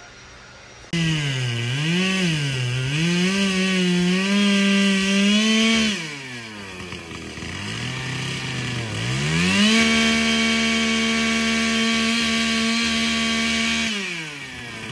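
Two-stroke chainsaw cutting branches: it cuts in sharply about a second in and revs up and down through the cut, drops back to a lower idle in the middle, then is held at high revs for several seconds before easing off near the end.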